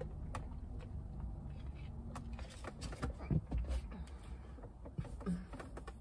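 A woman hiccuping: a few short, sudden catches in the throat, the loudest about three seconds in and another near the end, with small clicks from a plastic cup and straw as she sips, over a low steady rumble inside the car.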